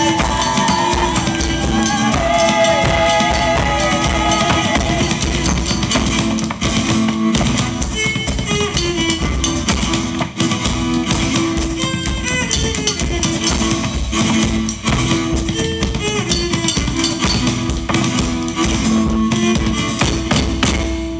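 Live medieval-style folk band playing an instrumental passage: a steady drone note under a moving melody, with drums keeping a regular beat.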